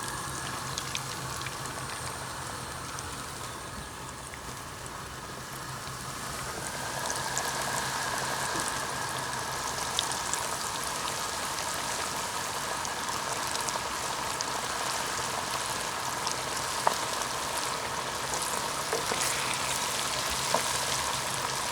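Chicken frying in hot oil in a pot, a steady sizzle with small crackles, growing louder about seven seconds in as it browns.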